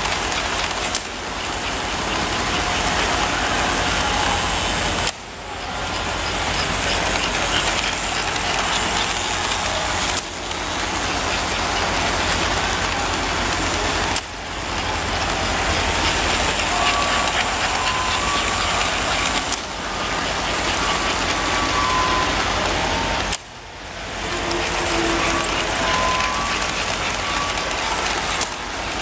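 American Flyer S-gauge toy trains running on the layout: steady whirring of the locomotives' motors and gearing and the rattle of wheels on the track, over a low hum. The level dips sharply for a moment every four to five seconds.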